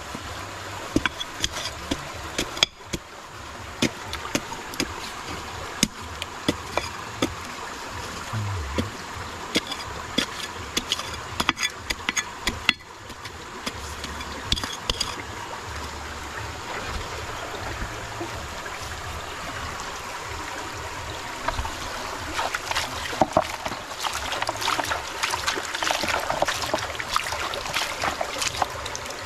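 Steady running water with many short clicks and knocks of stones and a hand tool striking and scraping gravelly rock. Near the end the clicks and splashes get denser as a rock is scrubbed by hand in a pan of muddy water.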